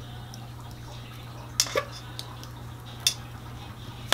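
A few sharp clacks as a plastic ketchup bottle is squeezed and knocked over a stainless steel pot: two close together about one and a half seconds in, another about three seconds in, and one at the end. A steady low hum runs underneath.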